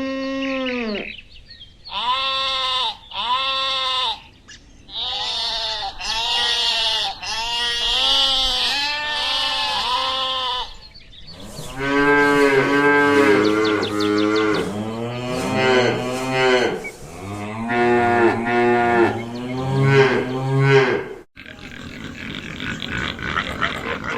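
Livestock calling over and over: a long run of pitched calls about a second each, rising then falling in pitch. The calls come lower-pitched and more crowded in the second half, and a sudden cut near the end gives way to a noisier sound.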